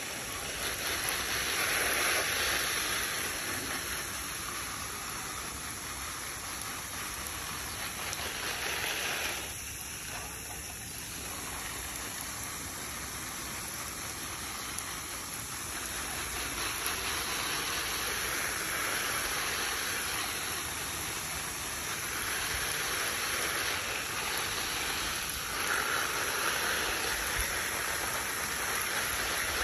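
Garden hose spray of water hitting leafy lettuce and other vegetable plants, a steady hiss of falling water that eases off briefly about ten seconds in.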